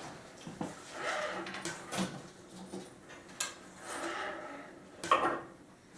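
Handling noise of a wooden chair being assembled: light rubbing and scraping with a few sharp knocks as the steel cable is pushed into the holes of the backrest's wooden sections.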